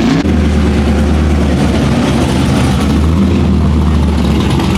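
A loud car engine idling steadily, after a short rev that falls away right at the start.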